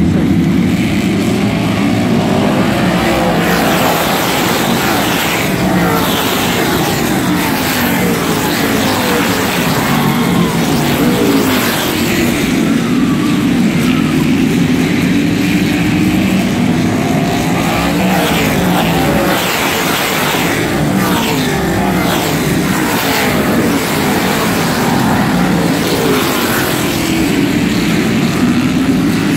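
Modified race cars' V8 engines running around a short flat track, a pack of engines whose pitch rises and falls over and over as cars pass close by and move away.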